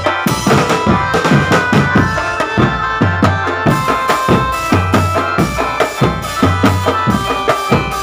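Can macanan drumband playing live: bass drums and a tom set beaten in a fast, dense rhythm, with a keyboard melody held over the drums.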